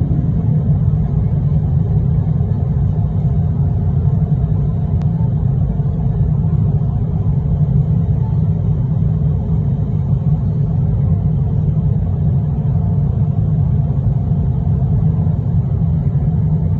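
Steady low rumble inside a jet airliner's cabin in flight: turbofan engine and airflow noise heard from a window seat over the wing.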